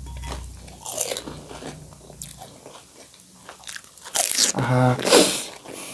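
Crisp pani puri shells being bitten and crunched in the mouth: scattered light crunches, then a louder run of crunching about four seconds in.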